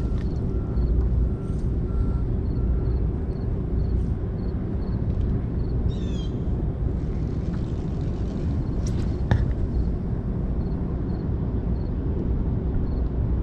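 Small boat motor running steadily, a low rumble with a constant hum. A short chirp comes about six seconds in and a sharp click about nine seconds in.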